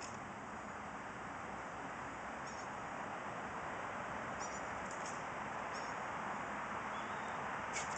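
Steady outdoor background hiss, with a few short, faint, high-pitched squeaks or chirps scattered through it.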